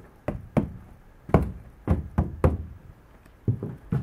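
About ten irregular knocks on the heat-shrunk Dacron polyester skin of a skin-on-frame canoe, each with a short, low, drum-like ring: the fabric has been shrunk tight as a drum.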